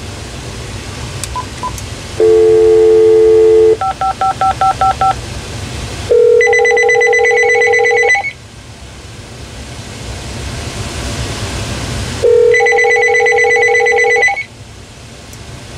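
Cordless phone on speakerphone placing a call: a steady dial tone, then a quick string of touch-tone digits. Then two 2-second rings of ringback tone about six seconds apart, each with a warbling electronic ring sounding along with it.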